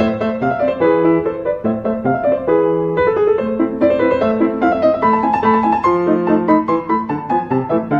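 Background piano music: a steady melody of quick notes over a lower accompaniment.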